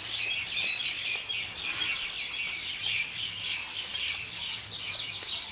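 Birds chirping: a dense, continuous run of short, high calls.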